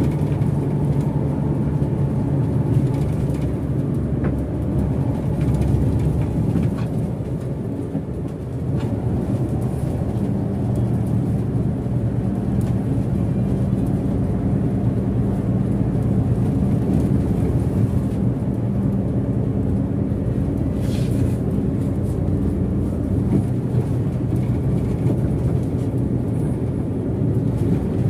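A Hino RK8 bus's six-cylinder diesel engine runs steadily while the bus is under way, over a constant drone of tyre and road noise. The engine note shifts to a higher pitch about a third of the way in.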